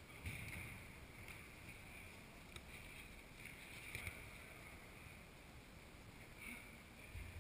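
Faint, echoing ambience of an indoor football game on artificial turf: a low steady rumble with a few soft ball kicks and distant activity in the hall.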